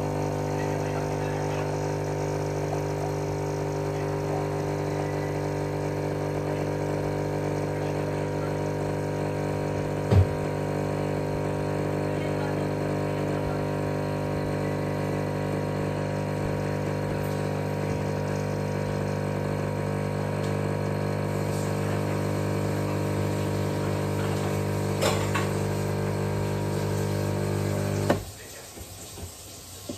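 Krups pod drinks machine brewing, its pump humming steadily, then cutting off abruptly near the end. A single sharp knock about a third of the way in.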